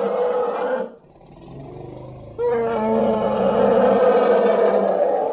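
Film bear sound effect: two loud roars. The first cuts off about a second in, and the second starts about two and a half seconds in and holds. The bear's voice is built partly from elephant sounds.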